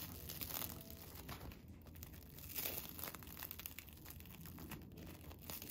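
Hands tearing apart a thick slice of toast: faint crackling of the crisp toasted crust and soft tearing of the crumb, with little crackles scattered throughout.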